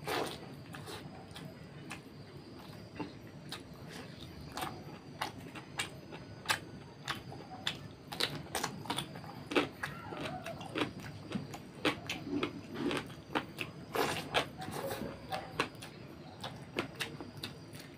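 Close-miked chewing and lip-smacking of a man eating fatty pork curry and rice by hand: a string of irregular sharp smacks and clicks, busiest in the second half.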